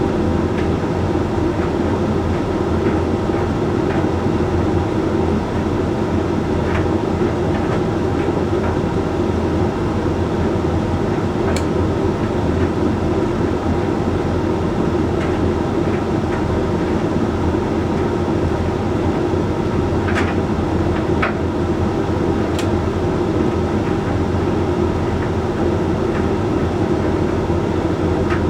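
Hoover Link X Care condenser tumble dryer running mid-cycle: a steady hum from the motor and turning drum, with a few light clicks scattered through it.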